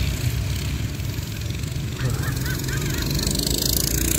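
Several small minibike engines running as the bikes race around a dirt track, a steady low drone throughout. About halfway through there is a brief run of high honk-like calls, and a hiss rises near the end.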